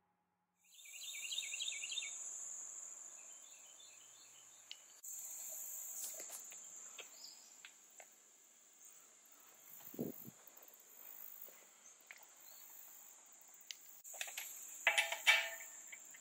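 Insects buzzing steadily at a high pitch, with a few bird chirps in the first seconds. Near the end come a couple of short bursts from a cordless impact wrench on the wheel's lug nuts.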